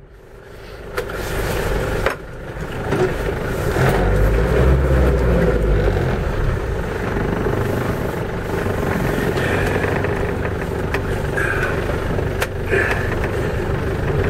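Off-road 4x4's engine and drivetrain heard from inside the cab on a muddy trail. The sound builds over the first few seconds, has a deep rumble about four to six seconds in, then runs on steadily.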